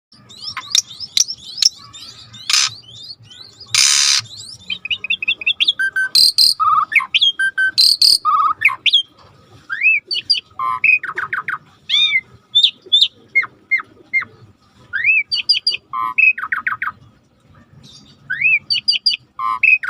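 Javan pied starling (jalak suren) singing a long, varied song of rising whistled slurs and quick chattering note series, broken by a few harsh rasping calls in the first half. It is a 'tembak' song used to provoke a silent caged jalak suren into singing.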